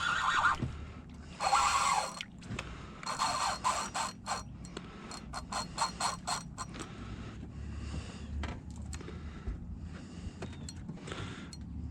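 Spinning reel's drag buzzing in three short runs as a hooked jack crevalle pulls line, then a string of rapid clicks, fainter toward the end.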